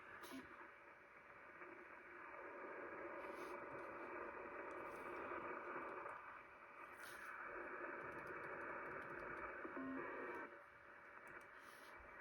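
Shortwave receiver audio on 4635 kHz: a faint, narrow-band hiss that swells up twice and then falls back. A short low beep comes about ten seconds in.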